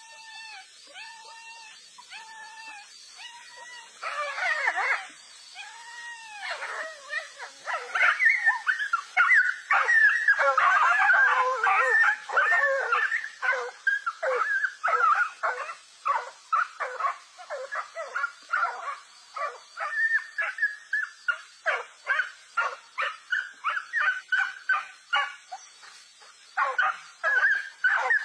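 Dogs yelping and whining in high-pitched cries, faint at first, then louder and denser from about four seconds in, ending in a rapid run of short yelps.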